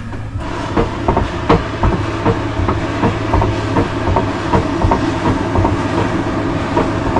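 Blacksmith's forge bellows being worked: a steady rush of air into the coal fire, with small rhythmic clacks from the bellows mechanism about two or three times a second, starting about half a second in, as the striker's iron is reheated.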